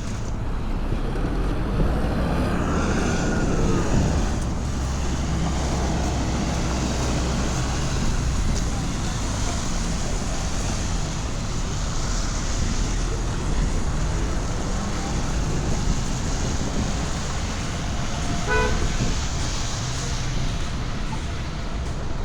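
Steady city road traffic noise from passing vehicles, with a short car horn beep about eighteen seconds in.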